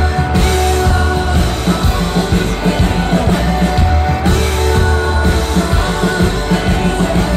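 A live folk-rock band playing, heard through the crowd's recording: strummed acoustic guitar, drum kit and bass, with the lead singer's voice.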